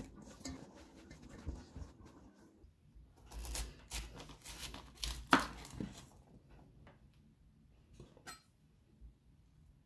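Paper towel rustling as a raw cauliflower head is patted dry in a stainless-steel bowl, then a kitchen knife crunching down through the cauliflower on a wooden cutting board, with one sharp knock about halfway through and a short click near the end.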